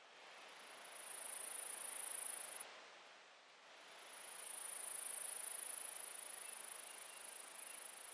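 An insect's high-pitched, steady trill, typical of a cricket or katydid. It swells in, stops suddenly about two and a half seconds in, then starts again a second later and keeps going, over a faint background hiss.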